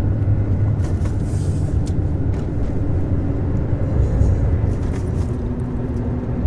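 A car's engine and running gear make a steady low rumble, heard from inside the vehicle, with a few faint clicks.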